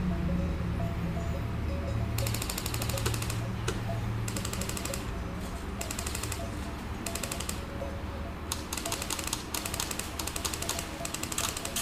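Airsoft electric rifles firing on full auto: a string of short bursts of rapid, even, typewriter-like clicks, coming closer together in the second half.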